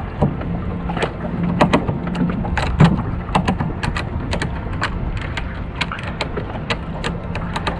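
Hand tools clicking and knocking at irregular intervals during repair work, over a steady low hum.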